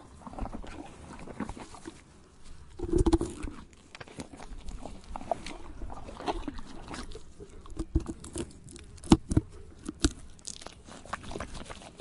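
A horse chewing tree bark: irregular crunching and snapping bites. There is a louder, lower burst about three seconds in and a few sharp, loud cracks around eight to ten seconds in.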